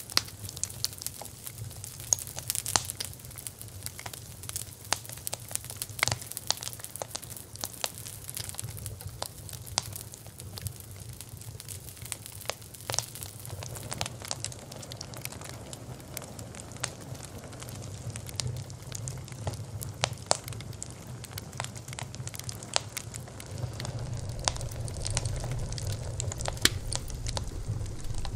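Campfire crackling, with irregular sharp pops and snaps of burning wood over a low steady rumble that grows louder in the second half.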